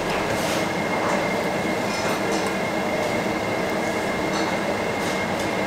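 Steady background din of a barbecue restaurant, with a few faint short clicks from the table.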